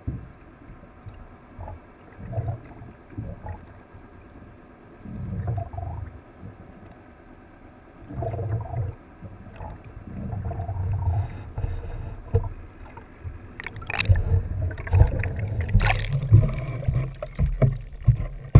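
Muffled water sloshing and gurgling picked up underwater, coming in uneven low surges. Sharp knocks and clatter join in over the last few seconds.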